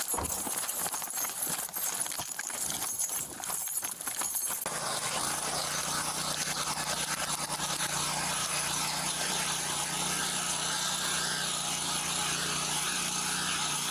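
Running footsteps and body-camera jostling, irregular thumps and rustles for about four and a half seconds. Then the sound switches abruptly to a steady vehicle engine hum with road noise.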